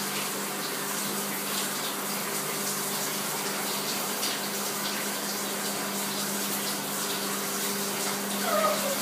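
Shower water running steadily into a bathtub, a constant splashing hiss with a steady low hum underneath.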